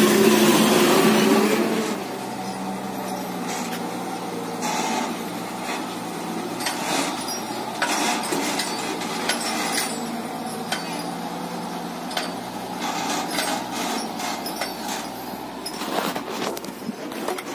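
A UD Quester tractor-trailer's diesel engine running as it drives past, loud for the first two seconds. The sound then drops to a quieter, steady rumble with scattered clicks and knocks.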